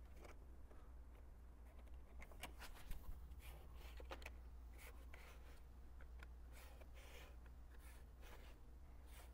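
Faint, short scratching strokes of a pen drawing a cut line on tape over a plastic bumper, using a card as a spacer, starting about two seconds in, over a steady low hum.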